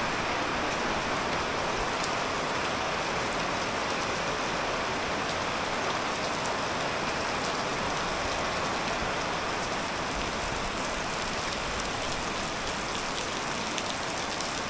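Steady rain falling, an even wash of sound with fine drop ticks.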